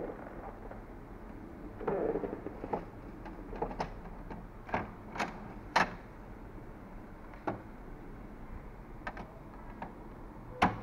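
A series of sharp plastic clicks and knocks, with a short rustle about two seconds in, from handling an HP DeskJet 2130 inkjet printer: its front access door is opened and a hand reaches in to the cartridge carriage.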